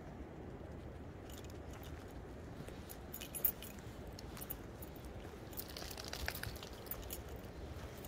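Footsteps on a needle- and twig-strewn forest floor: scattered crackling and snapping, thickest around six seconds in, over a low steady rumble.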